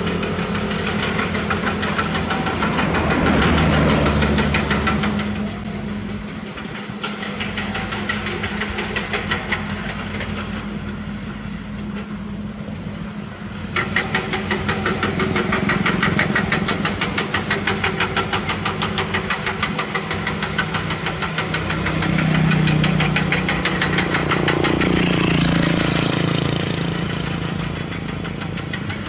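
Heavy diesel engines of Komatsu PC200 excavators running under load. About halfway through, the sound changes to the Komatsu D31P bulldozer's diesel close by, with a fast, even clatter, and the engine swells in load twice.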